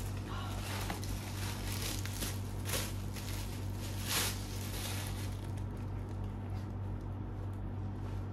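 Rustling and handling of a newly unboxed sneaker and its packaging: a string of irregular rustles, the loudest about four seconds in, over a steady low hum.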